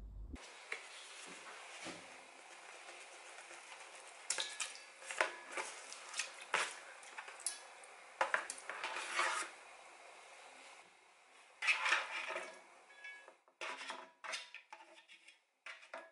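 Ingredients being added by hand to a rice cooker's metal inner pot of soaking rice: a run of light taps and clinks against the pot as chicken pieces go in. Then a short burst of rustling and scraping about twelve seconds in as carrots are slid off a plastic cutting board, followed by a few more taps.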